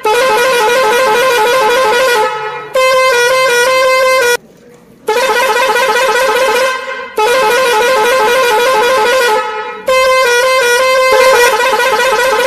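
A high, wavering electronic horn sound repeating in a loop: long warbling blasts alternate with a short tune of steady stepped notes, with one brief break about four and a half seconds in.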